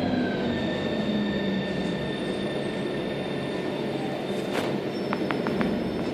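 Milan Metro Line 5 train running through a tunnel: steady rolling noise with a thin, high, steady whine over it. A cluster of sharp clicks comes about four and a half to five and a half seconds in.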